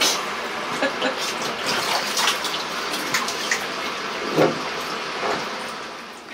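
Water running into a small bathtub with some splashing, dying away near the end.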